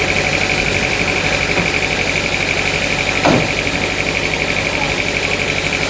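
Sawmill machinery running steadily, with a constant high whine over a fast, even low pulsing. About three seconds in, a short sound falls in pitch.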